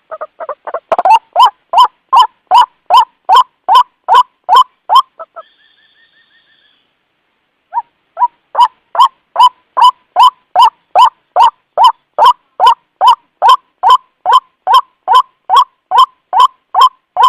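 White-breasted waterhen (ruak-ruak) lure call: a loud, steady run of repeated harsh notes, about three a second. The notes break off for a couple of seconds around the middle, where a faint high trill is heard, then carry on at the same pace.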